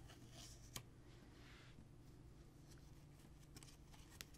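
Faint handling of heavy-paper flash cards: a soft paper rustle in the first second and a half with a sharp tick about three quarters of a second in, then a few small clicks near the end.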